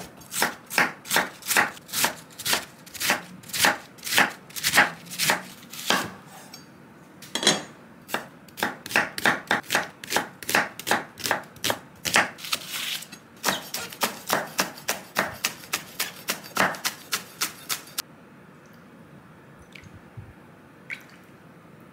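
Chef's knife slicing cabbage and then onion on a wooden cutting board, steady cuts about three a second with a brief pause partway through. The cutting stops a few seconds before the end.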